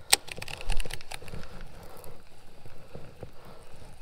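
Baitcasting reel on a cast: a sharp click as the spool is freed, then about a second of fast crackly ticking as line pays out. After that comes quieter rustling of the rod and reel being handled.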